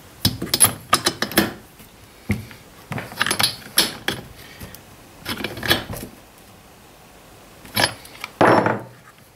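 Steel T-handle spark plug wrench clinking and rattling in several short bursts as a new spark plug is threaded in and tightened, with a longer rattle near the end.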